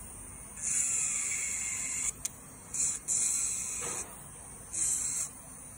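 Electric nail drill bit grinding away a large nail-art part glued to a fingernail, in four on-off bursts of high hissing grinding as the bit touches and lifts; the longest burst lasts about a second and a half, near the start. There is a short sharp tick about two seconds in.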